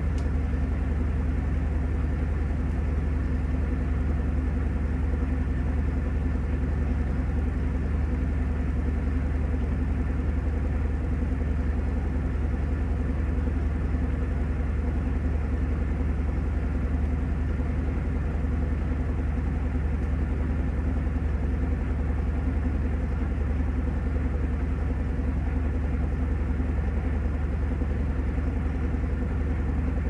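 Panasonic top-loading washing machine spinning its tub at speed: a steady motor hum with a low rumble that holds even throughout.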